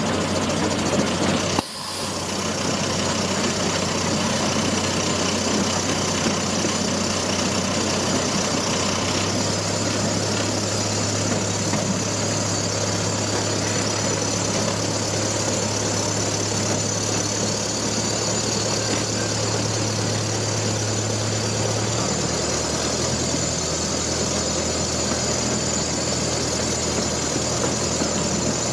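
Zoo train's engine running steadily as the train travels along, a constant drone with a slight shift in pitch about a third of the way in and again near the end.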